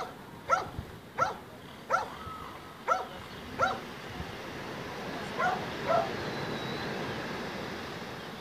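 A dog barking: six sharp barks in quick succession, then two more after a short pause, over a steady rush of wind and surf.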